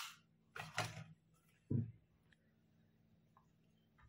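Crisp deep-fried puri shell cracking as it is broken open by hand: a few sharp crunches in the first second, then a single dull thump.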